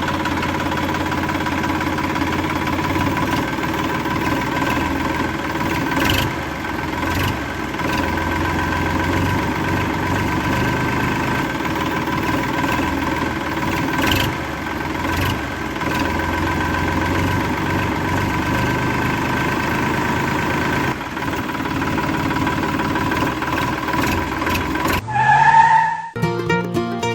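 Small motor of a DIY mini tractor running steadily with an even whine, stopping about a second before the end.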